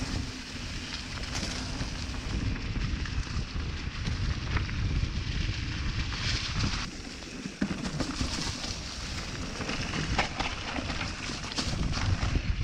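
Mountain bike descending a rocky single track: wind buffets the action camera's microphone with a low rumble, while the tyres crunch over gravel and stones with many small knocks and rattles.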